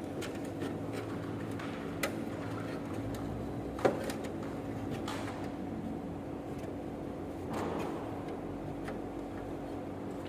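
Handling of a plastic air-conditioner filter in the indoor unit: scattered light plastic clicks and scraping, with a sharp snap just before four seconds in. A steady electrical hum runs underneath.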